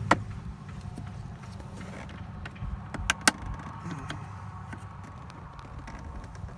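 Sharp plastic clicks as snap-in clips holding a dashboard trim panel are worked loose: one at the start and two close together about three seconds in, over a faint low hum.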